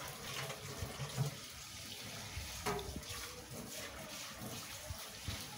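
Water running steadily into a small concrete fish pond.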